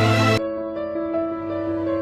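Background music. A loud, full arrangement cuts off abruptly a fraction of a second in and gives way to quieter, gentler music with long held notes.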